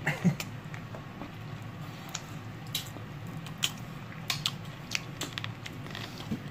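People chewing roast chicken, with scattered wet clicks of chewing and lip-smacking over a steady low hum.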